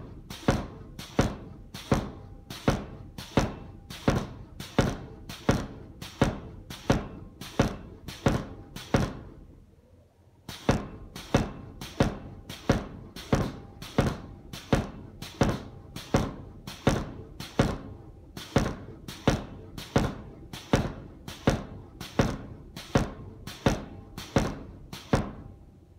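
Homemade pneumatic forging power hammer, a 69 kg ram on railway-line dies, striking hot steel in a steady run of heavy blows, about one every 0.6 seconds. The blows stop for about a second near the middle, then resume and stop just before the end.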